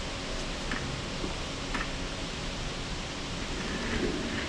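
Steady hiss of workshop room noise, with a few faint clicks as metal parts are handled on the bench and press.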